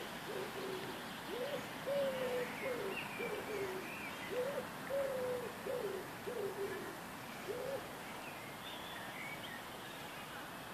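A pigeon cooing in repeated phrases of several low notes, the second note of each phrase held longest; it stops about three-quarters of the way through. Small birds chirp faintly.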